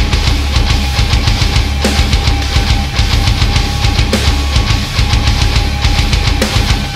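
Heavy metal music: distorted guitars over fast, dense drumming, with a single high note held steady throughout.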